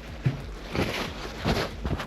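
Metal parts of a Honda B-series transmission being handled and set down during disassembly: about four short knocks and clunks in two seconds.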